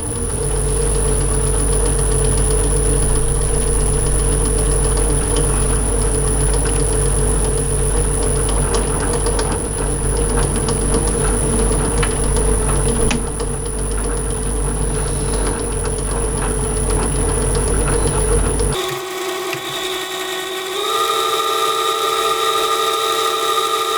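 Emco V10-P metal lathe running with a steady hum and a high whine while a knurling tool is pressed into a bar of about 15 mm, giving a rough scraping texture over the machine noise. About 19 seconds in the sound changes abruptly to a different, higher machine whine, which steps up in pitch a couple of seconds later.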